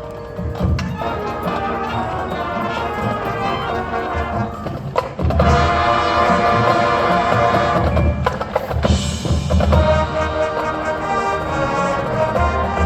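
High school marching band playing: brass chords over drums and percussion, swelling louder about five seconds in.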